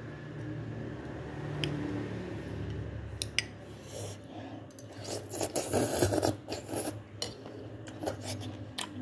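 Eating sounds at close range: a spoon scraping and clicking against a ceramic bowl and a sauce dish. A run of rough rasping scrapes comes about midway, with scattered clicks before and after.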